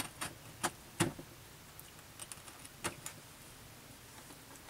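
A few light clicks and taps of hands handling a cardboard doll box, the strongest about a second in.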